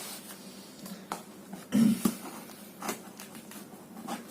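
Scattered clicks and rustles of a supplement package being handled, with one louder bump a little under two seconds in.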